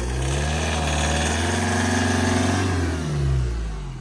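A vehicle engine revs up over the first second, holds at higher revs, then drops back down about three seconds in.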